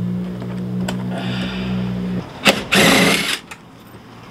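A power seat's electric motor runs steadily as it drives the seat forward on its tracks, and stops about two seconds in. About half a second later there is a short, louder burst from a cordless driver on a seat bolt.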